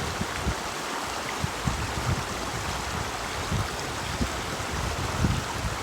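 Creek water rushing steadily over a shallow rocky crossing, with irregular low rumbles underneath.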